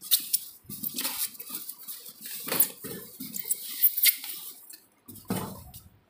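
Polystyrene foam packing block scraping and rubbing against the carton and the microwave oven's casing as it is pulled free, in irregular rasps and rustles, with a louder rub about five seconds in.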